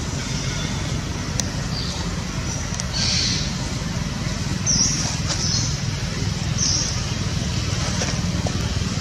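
Outdoor background ambience: a steady low rumble, with short high-pitched bird chirps several times over it.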